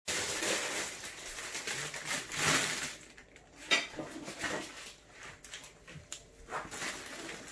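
Snack packets and small cardboard boxes being handled and sorted: crinkly rustling with a few short knocks.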